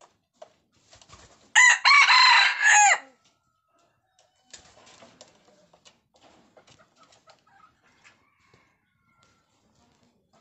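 Red junglefowl cock crowing once, a short crow of about a second and a half. Faint scattered clicks and rustles follow.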